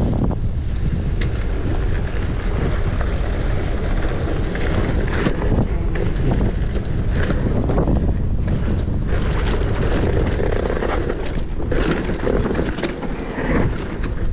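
Wind buffeting the microphone on a fast mountain-bike descent, with the tyres rolling over a dirt trail and frequent short clatters and knocks as the bike goes over bumps.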